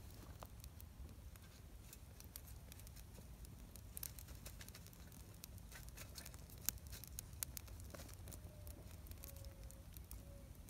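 Small wood fire of dry twigs crackling in a Firebox folding stove, with scattered sharp pops; the loudest pop comes about two-thirds of the way in.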